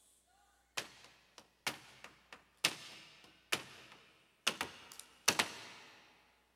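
A run of sharp percussive hits with irregular spacing, about a dozen in five seconds, some in quick pairs, each with a short ringing echo.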